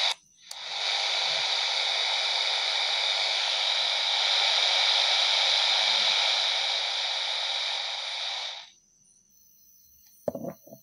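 FM static hissing from a handheld radio's speaker, tuned to the FM band with no signal on its frequency. The steady hiss cuts off suddenly near the end, followed by a couple of short knocks.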